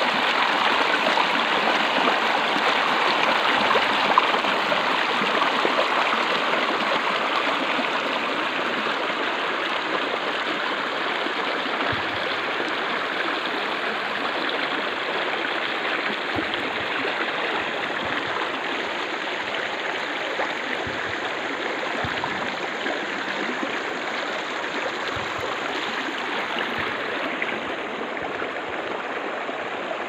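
Small, shallow, fast stream rushing and splashing over stones: a steady, full water noise that grows gradually a little quieter over the half minute.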